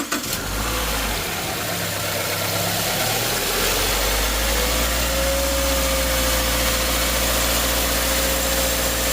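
Subaru 2.5-litre non-turbo flat-four engine running just after start-up. A few seconds in, a steady high squeal from the serpentine belt sets in and holds. The belt is oil-contaminated and cracked and squeals on start-up, worst when cold.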